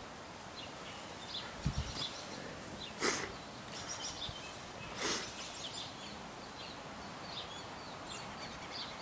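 Birds chirping in short, scattered calls over a steady outdoor hiss, with two brief rushes of noise about three and five seconds in.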